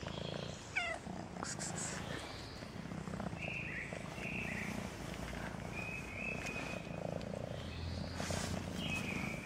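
A kitten purring as it is stroked, a low hum coming in on-and-off stretches. A few short high chirps sound over it.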